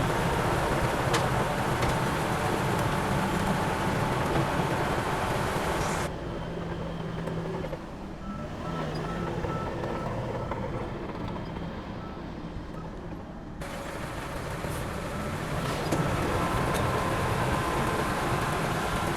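Heavy diesel machinery running steadily with a low engine drone. From about six seconds in to about fourteen seconds the sound turns duller and quieter, with a faint series of short high beeps, then the full engine noise returns.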